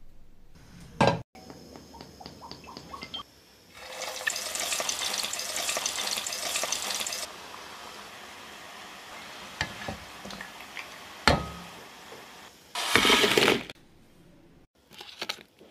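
Crumb-coated paneer cubes deep-frying in hot oil: loud sizzling for about three seconds, then a quieter steady sizzle, with a sharp knock and a brief loud burst of sizzling near the end. Knocks and small clicks of dishes or utensils come before the frying.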